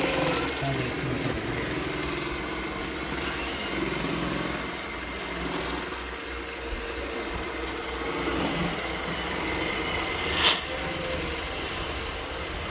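Roomba S9 robot vacuum running with a puffing, grinding sound that a new cleaning head has not cured. A single sharp knock about ten and a half seconds in.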